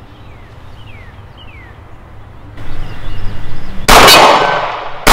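Glock 30 SF .45-calibre pistol fired once about four seconds in, with a second shot at the very end a little over a second later; each sharp report rings and echoes out for about a second. Before the shots, a few faint bird chirps are heard.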